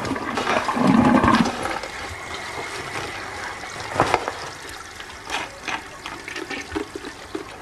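Toilet flushing: a rush of water that slowly dies away, with a few light knocks and clicks from about four seconds in.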